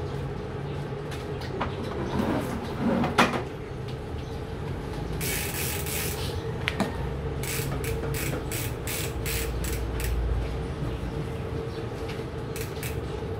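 Scrubbing on a mountain bike's cassette and chain: a run of quick, hissy strokes at about two to three a second, with one louder knock about three seconds in.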